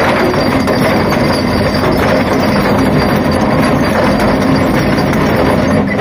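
Hyundai 480 excavator's diesel engine running under load while its trencher attachment grinds through rocky ground, a loud, steady mechanical grinding.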